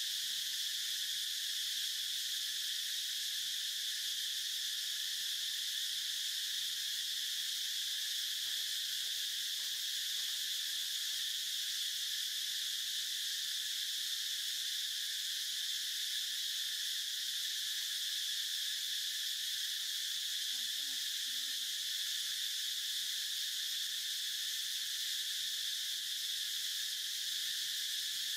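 Steady, high-pitched drone of an insect chorus that never varies or breaks.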